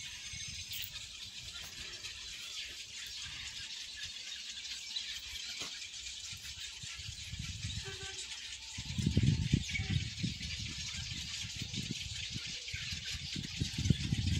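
Steady, dense chattering of a large bird colony in the sanctuary trees. Low rumbling bursts come in about nine seconds in and again near the end.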